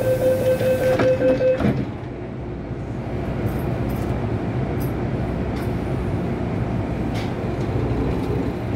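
MTR M-Train door-closing warning tone, stopping as the sliding doors shut with a knock about two seconds in. Then a steady low rumble of the train, growing slightly louder as it starts to move off.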